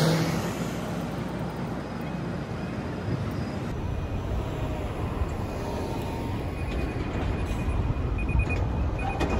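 Road traffic at a wide city intersection: trucks and a car driving through, a steady low rumble of engines and tyres. It grows a little louder near the end as a tractor-trailer approaches.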